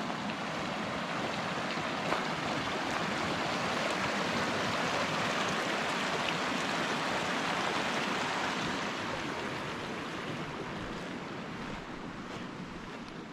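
Mountain creek running over rocks: a steady rushing wash of water, loudest midway and easing a little toward the end.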